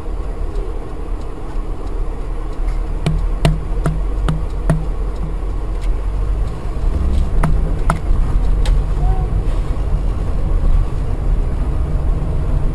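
Steady vehicle engine and road rumble, with a run of sharp clicks and knocks about three seconds in and a few more near eight seconds.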